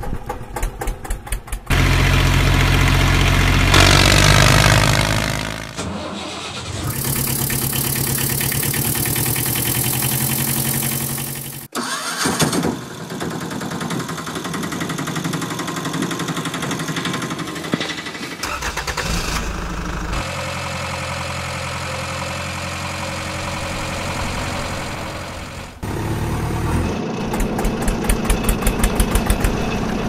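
Motor-vehicle engine sounds that change abruptly every few seconds: a diesel engine chugging with a fast even beat at the start and again near the end, and between them engines starting and running steadily, with a hard cut about twelve seconds in.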